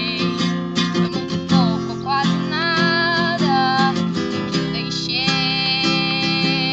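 Acoustic guitar strummed in steady chords, with a woman singing long held notes over it.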